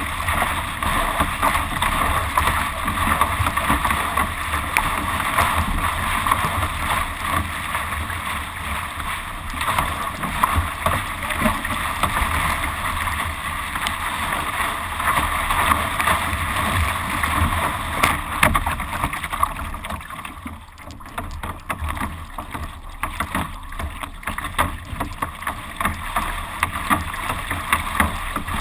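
Water rushing and splashing along the bow of a carbon surf ski as it is paddled through small waves, a steady churning wash that drops away briefly about two-thirds of the way through.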